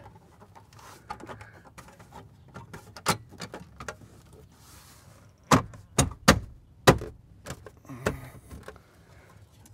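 Plastic lower dashboard trim panel of a VW Jetta TDI being handled and pressed back onto its spring clips, giving sharp knocks: one about three seconds in, then four in quick succession a couple of seconds later.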